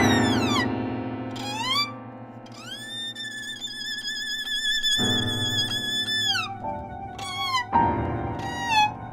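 Music: a high melody line that slides down, then up, holds a long wavering note, then plays a run of short falling notes, over sustained lower notes.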